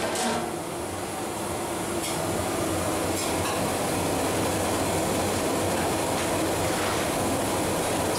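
Steady rushing noise of a commercial gas stove burner under a large aluminium pot of spiced water at the boil.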